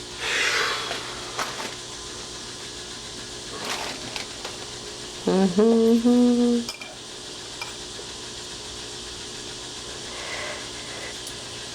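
Small metal lock parts and packaging being handled, with light clinks, clicks and rustling. About five seconds in comes a short, loud hummed voice sound that rises and then holds, the loudest thing here.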